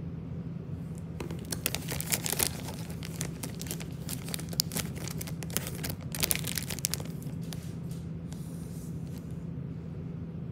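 Bernese mountain dog nibbling and licking at an itchy spot in its coat, a rapid crackling of teeth and tongue working through the fur, thickest in the first two-thirds and dying away near the end. A steady low hum runs underneath.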